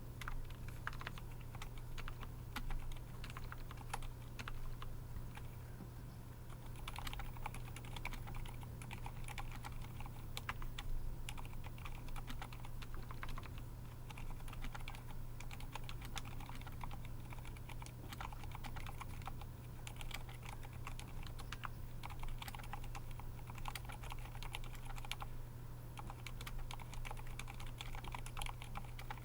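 Typing on a Skyloong GK68XS mechanical keyboard fitted with Cherry MX Silent Red linear switches: a steady, continuous run of keystroke clicks.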